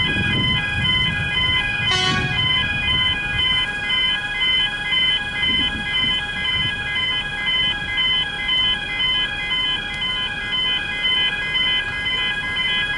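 Electronic level-crossing bells ringing with a steady, rapidly repeating ding while the boom gates are down, warning of an approaching train. A single sharp knock sounds about two seconds in.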